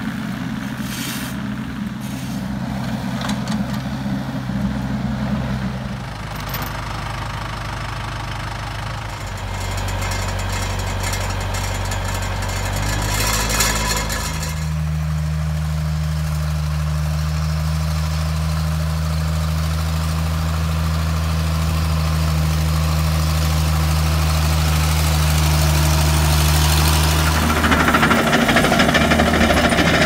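Diesel engines of heavy equipment running, the sound changing abruptly with each cut. A compact excavator works at first. From about fifteen seconds a motor grader's engine runs steadily, and near the end a John Deere crawler dozer.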